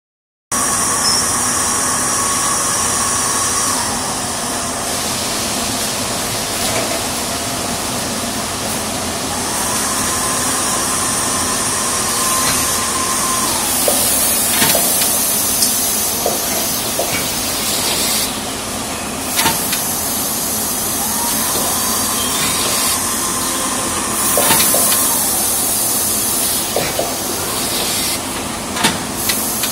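Full-auto valve bag packing machine running: a steady mechanical din with repeated bursts of hissing air, a whine that rises, holds and falls away twice, and scattered sharp clacks.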